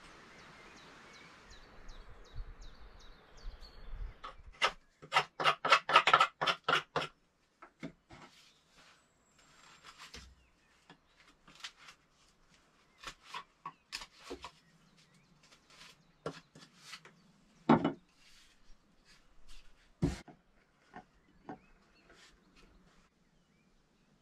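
Knife blade shaving and carving wood by hand: a quick run of scraping strokes, the loudest sounds here, followed by slower, scattered cuts.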